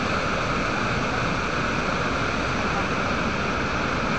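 Muddy floodwater pouring over the edge of a low embankment in a broad cascade, a steady rushing of water.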